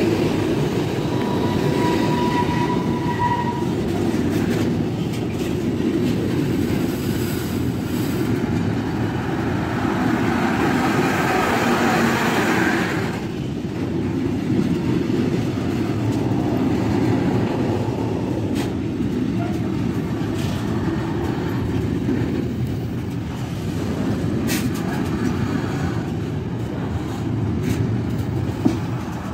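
A train running past on the rails: a steady rumble of wheels, with a brief high steady tone in the first few seconds and a sharp click near the end.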